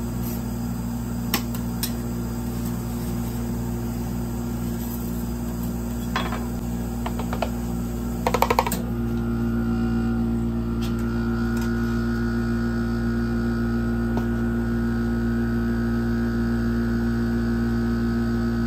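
Steady hum of the ice cream roll machine's refrigerated cold plate, with a few sharp clicks and two short bursts of a metal spatula scraping and clattering on the frozen plate about six and eight seconds in. From about nine seconds the hum is slightly louder, with a higher tone added.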